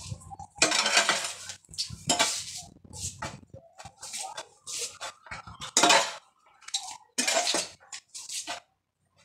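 A metal hoe chopping and scraping through a pile of loose soil on a ceramic-tiled floor, breaking up clods of earth. It makes about ten short, irregular scraping strokes of the blade against the tiles, stopping shortly before the end.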